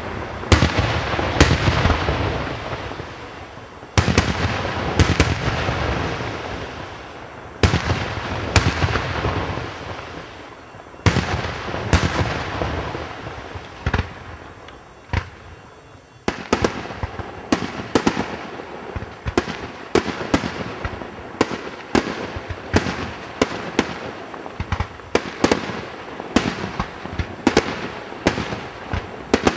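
Aerial firework shells bursting: heavy bangs each followed by a long crackling tail from glittering stars. There is a lull about halfway, then a fast run of sharp reports, several a second.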